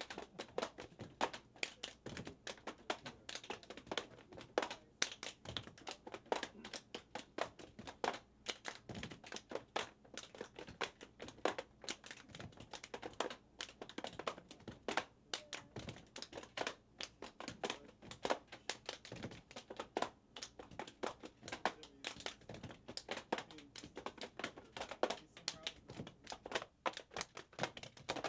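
Irregular clicks, taps and clatter of plastic pipette tip boxes being picked up, opened, shut and set down by gloved hands on a lab bench, several knocks a second, with some crinkling.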